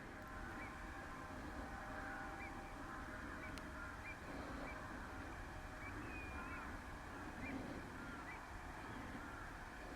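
Many birds calling at once: a flock of waterbirds giving short, repeated calls, with a low rumble of wind beneath.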